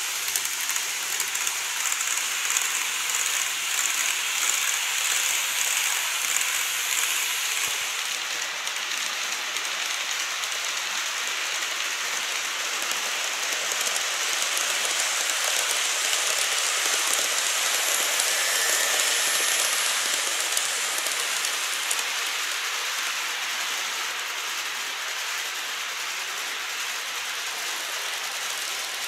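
Model trains, a 787 series set and an ED76 locomotive with 14 series coaches, running on sectional track: a steady, fine rattling hiss of small wheels rolling over the rails and rail joints. The sound is brighter for the first eight seconds or so, then a little duller.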